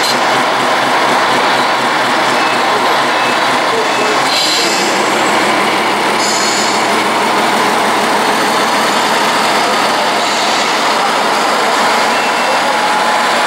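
Radio-controlled scale semi trucks running, with their sound modules playing a steady diesel-engine rumble over the chatter of a busy hall.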